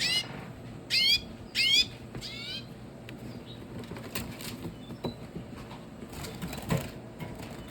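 Red siskins giving four sharp calls in quick succession within the first two and a half seconds, the last one softer, then scattered rustling and clicking as birds are handled.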